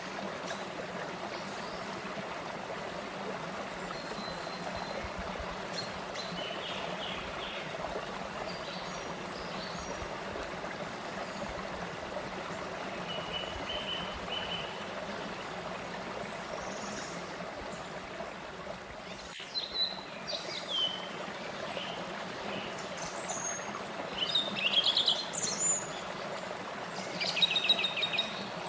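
Shallow stream running over small rock cascades, a steady rush of water. Birds chirp now and then over it, loudest in a few quick bursts of chirping in the second half.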